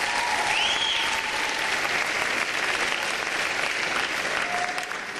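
Hall audience applauding steadily, with one person whistling a short rising-and-falling note about half a second in.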